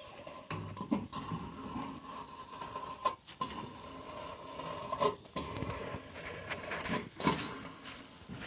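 A wooden-framed pig tractor being pulled along on wheels with pigs walking inside: low scuffling and pattering, with a few soft knocks about every two seconds.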